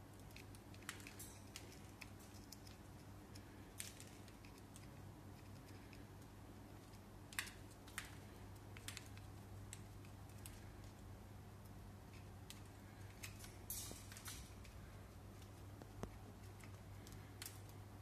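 Cockatiel feeding at a clear plastic seed feeder: irregular sharp little clicks and ticks of its beak cracking seeds and tapping the plastic, a dozen or so scattered over the stretch, over a faint steady hum.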